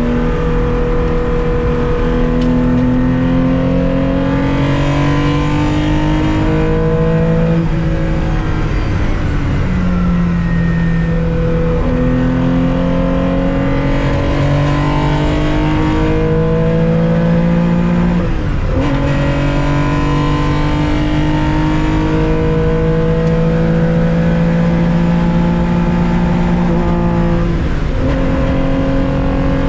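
1965 Porsche 911 2.0's air-cooled flat-six engine under racing load, heard from inside the car. Its pitch climbs steadily through each gear and drops sharply at each of about four upshifts.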